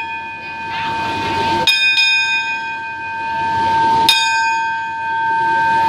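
Railway station platform bell struck by hand twice, about two and a half seconds apart, each stroke ringing on with a clear tone into the next: the station's signal bell for the train.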